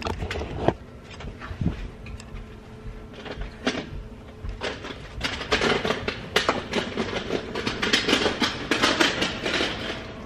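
Clattering and knocking of things being handled and moved about, with scattered knocks at first and a busy run of rattling clatter from about halfway in.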